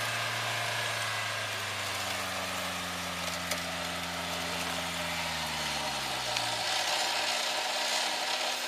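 Electric winch on an off-road SUV's front bumper hauling the vehicle up a slope on its cable, a low hum that sinks slowly in pitch under load and stops about six and a half seconds in, with the vehicle's engine running underneath.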